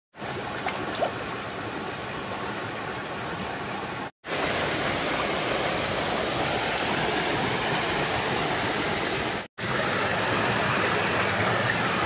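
Mountain stream water rushing steadily over rocks, cut off briefly twice, about four seconds in and again after nine and a half seconds.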